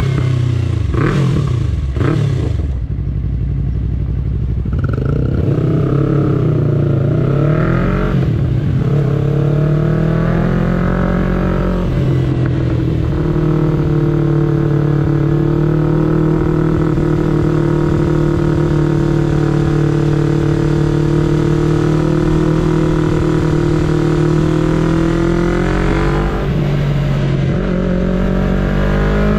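A sport motorcycle's engine, heard from the saddle, pulls away and climbs through the first gears. It then holds steady revs at cruising speed. Near the end the revs drop briefly with a gear change and climb again.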